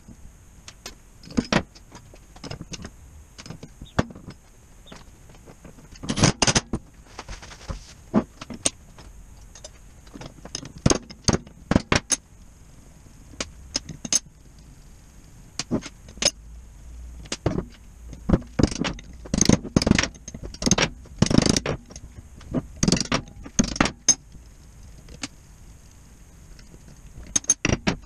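Metal parts, bolts and hand tools clinking and knocking on a steel workbench as a Midland truck air compressor is unbolted and taken apart, in scattered irregular clicks with a few louder clusters, alongside short bursts of a cordless power tool.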